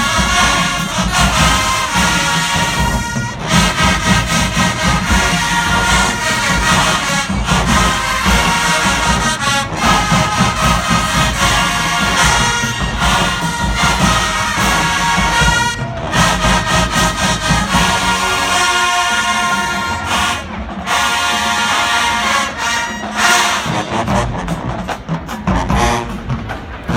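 College marching band playing in the stands: brass and sousaphones over drums, loud and continuous.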